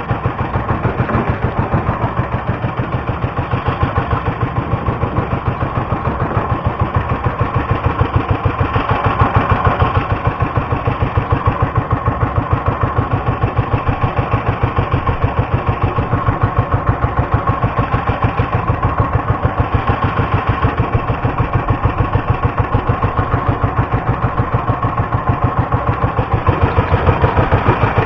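Small engine of a motorized outrigger fishing boat (bangka) running steadily, with a fast, even pulsing beat.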